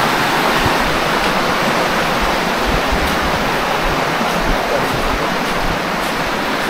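Steady rushing of a flowing river.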